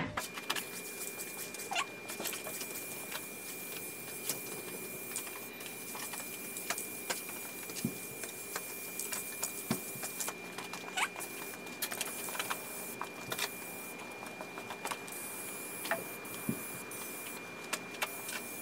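Aerosol spray can of Krylon ColorMaxx clear acrylic sealer hissing in passes over a tabletop, with scattered light clicks and taps.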